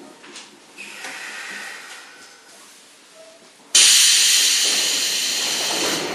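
Sotetsu 7000 series commuter train's brake system venting compressed air: the line's characteristic brake exhaust hiss, starting suddenly and loudly just under four seconds in and slowly fading. Fainter hissing and a few high squeaks come before it.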